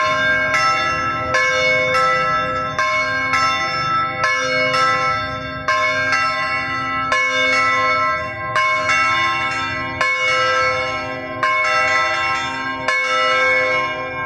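Church bells ringing a steady run of different notes, one strike about every three-quarters of a second, each note ringing on as the next is struck.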